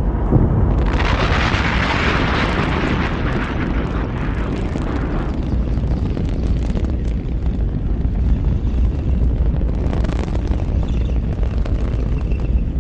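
Rocket explosion on the launch pad: a continuous deep rumble of the blast and burning fuel, with a sharp crack right at the start. A loud hissing, crackling surge comes in about a second in and fades by about five seconds, and a shorter surge follows near ten seconds.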